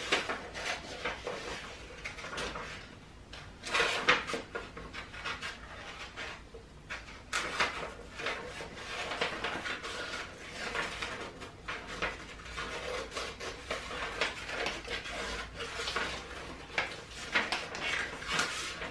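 Scissors snipping through a sheet of construction paper in many short, irregular cuts, with the paper rustling as it is twisted and turned to follow curved, drippy lines.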